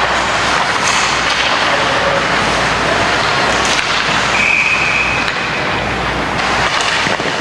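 Steady din of an ice hockey rink, an even hiss of crowd and arena noise, with one short, high referee's whistle a little past halfway as play stops at a scramble in front of the net.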